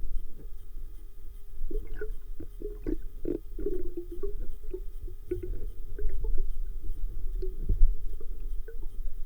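Underwater sound as heard through a camera in a waterproof housing: a steady low rumble with muffled gurgles and scattered short clicks, busiest a couple of seconds in.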